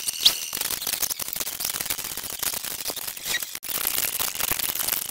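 Soundtrack of an animated action film played back at greatly increased speed, turning into a dense, rapid clatter of clicks and short chattering sounds.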